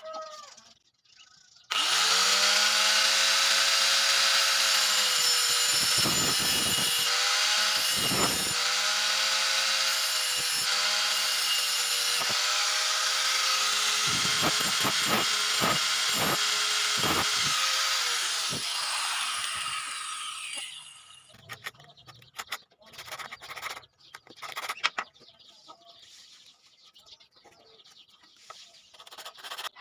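Electric power drill running for about eighteen seconds, starting abruptly, its motor pitch sagging briefly several times as it bites, with a few knocks, then spinning down. Scattered light taps and clicks follow near the end.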